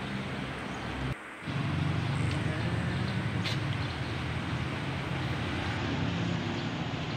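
Steady low motor hum over outdoor background noise, with a short dropout just over a second in.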